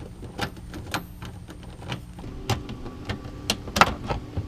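Hand tools working on a car's front bumper fasteners: about five sharp, irregular clicks and knocks of a wrench on a 10 mm bolt, the loudest near the end.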